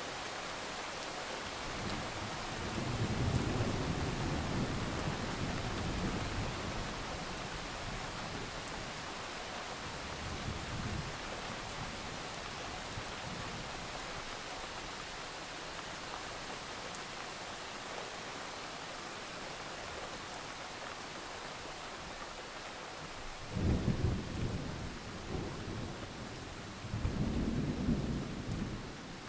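Steady rain with rolling thunder. A long rumble comes a couple of seconds in and a faint one around ten seconds. Near the end there are two more, the first starting suddenly.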